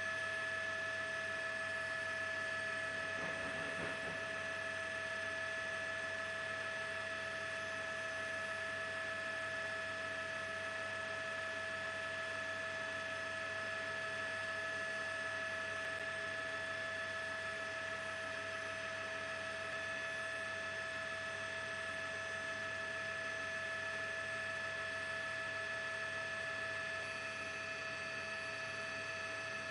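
Steady electrical-sounding hum made of several held tones, unchanging throughout, with a faint low rumble about three seconds in; no distinct blast is heard.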